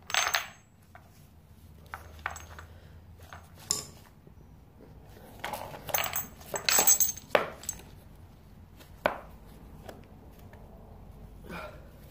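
Irregular metallic clinks and clatters of BMX bike parts and tools being handled. There is a sharp ringing clink right at the start, a few single knocks, and a busier, louder run of clatter about six to seven seconds in.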